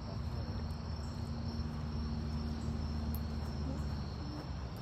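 Steady high chirring of crickets or similar insects, with a low steady hum underneath that stops about four seconds in.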